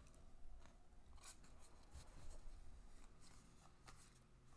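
Faint handling of a stack of Bowman Draft baseball cards: soft scattered ticks and brief scrapes as cards are slid and flipped one behind another.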